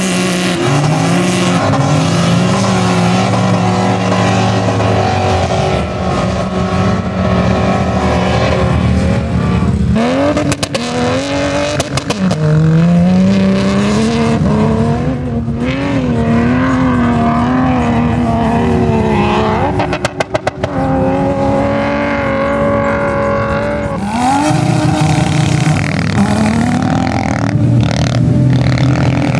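Off-road SUV engines revving hard at full throttle as they charge up a sand dune, pushed to the rev limiter. Several engines overlap: each pitch climbs, holds high and wavers as the vehicles bounce over the sand, and a fresh engine winds up about ten seconds in and again near the end.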